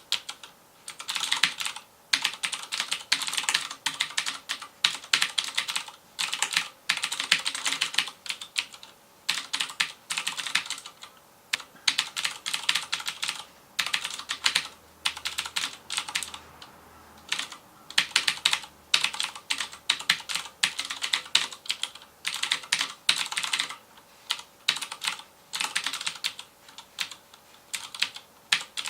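FILCO Majestouch Convertible 2 mechanical keyboard with Cherry MX Blue switches being typed on fast, the keys clicking in bursts of a second or two broken by short pauses.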